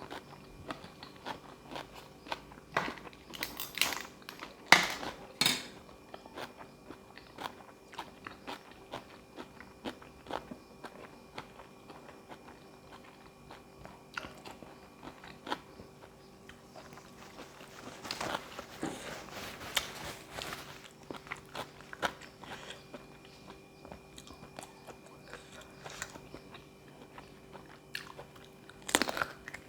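A person eating close to the microphone: chewing and crunchy bites, with a few louder bouts of crunching near the start, in the middle and near the end.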